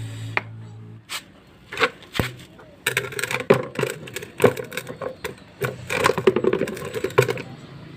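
Rusty metal drum-brake parts being handled and scraped: a run of sharp clicks and knocks with stretches of scraping and rubbing, from cleaning rust off a jeepney's brake wheel cylinder.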